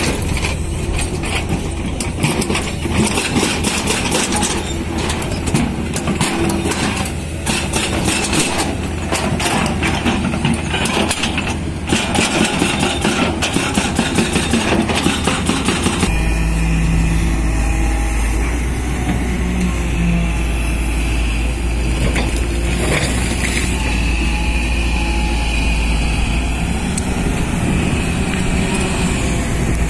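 Hydraulic excavators working: diesel engines running under load while the buckets dig, with frequent clattering of stones and soil for the first half. After a cut about halfway in, a steady deep engine rumble close by dominates.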